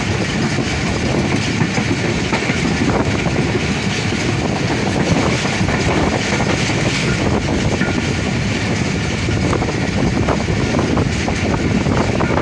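Passenger train running at speed, heard from an open coach door: a steady rumble of wheels on rail with the irregular clickety-clack of the wheels over rail joints.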